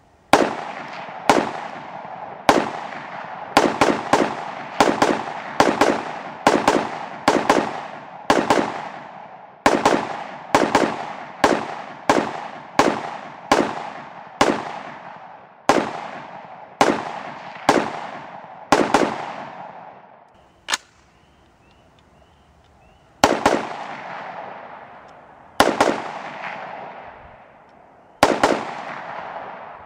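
AR-15-style rifle fitted with a prototype muzzle brake, fired semi-automatically in quick succession: about thirty-five sharp shots, mostly one or two a second with some quick pairs, each followed by a long echo. The firing pauses for about two seconds two-thirds of the way through, then resumes more slowly.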